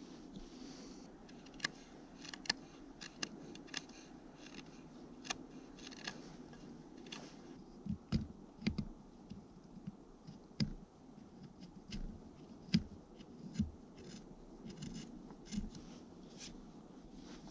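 Knife whittling a yellow cedar wedge for the axe handle: irregular sharp clicks and scraping cuts, with several duller knocks in the second half.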